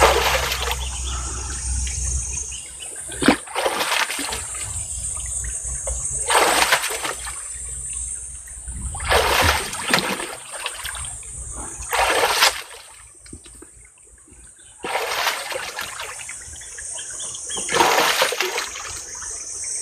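Splashing in a shallow stream as handfuls of mud and water are scooped up by hand and flung aside. A splash comes every two to three seconds over the steady rush of the running stream.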